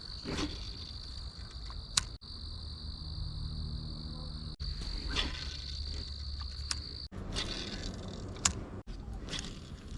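Insects trilling in a steady high drone, which stops abruptly about seven seconds in. There are a couple of sharp clicks, one about two seconds in and one near the end.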